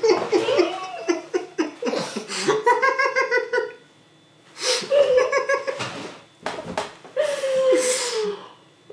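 Two people laughing hard with their mouths full of marshmallows, in bursts, with a short quiet gap about four seconds in.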